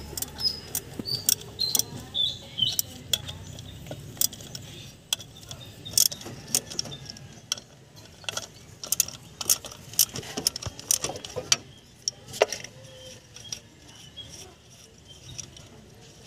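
Socket wrench working the water pump pulley bolts: sharp metal clicks and clinks at an uneven pace, some in quick runs, with one louder clack about twelve seconds in.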